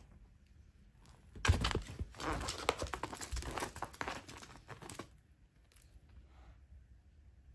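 A cat pawing and scrabbling at a wand toy on a tatami mat: a run of scratchy crinkling and rustling starts about a second and a half in and stops about two seconds before the end.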